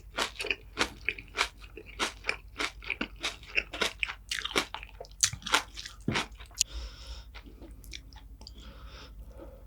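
Close-miked chewing with crisp, crunchy bites, many sharp crunches in quick succession. Near the end it turns to softer chewing.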